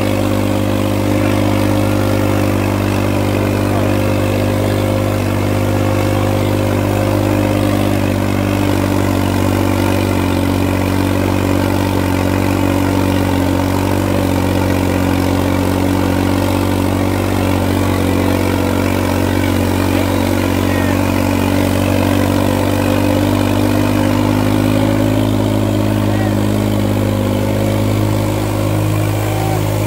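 New Holland tractor's diesel engine running steadily under heavy load while it drags a disc harrow through soft soil.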